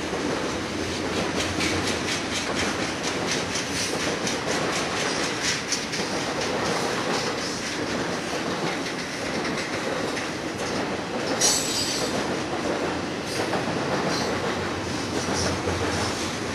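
Double-stack container freight train rolling past, its wheels clicking irregularly over the track under a steady rumble of rolling cars, with a brief sharper high-pitched burst about eleven seconds in.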